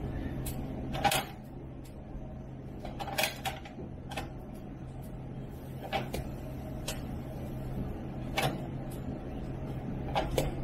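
Pizza dough being portioned by hand into 185 g balls: a scattering of short soft knocks and taps as pieces are pinched off, pressed on and set down on the steel pan of a kitchen scale, over a steady low hum.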